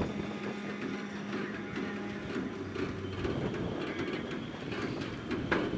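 Freight train rolling on the track: a steady low hum under irregular clanks and rattles from the cars, with a sharper clank about five and a half seconds in.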